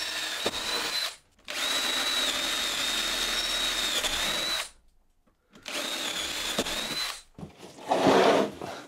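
Power drill with an 8mm bit boring bolt holes right through the cabinet base, running in three bursts with a steady high whine and short stops in between. Near the end, a louder wooden knock and scrape as the OSB cabinet is moved on the workbench.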